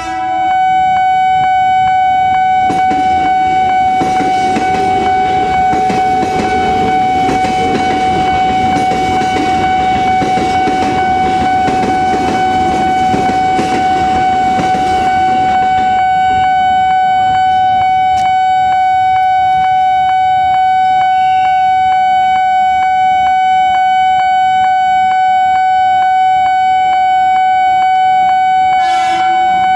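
Railway level-crossing warning alarm sounding a loud, steady high tone with regular clicks. An electric commuter train passes from about three seconds in, its rumble and wheel noise dying away about halfway through.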